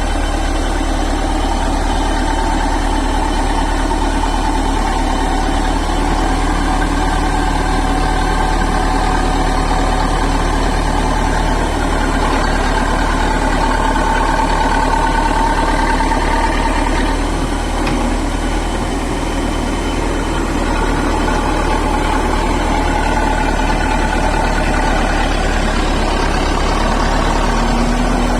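Bulldozer's heavy diesel engine running steadily, its note wavering slightly up and down.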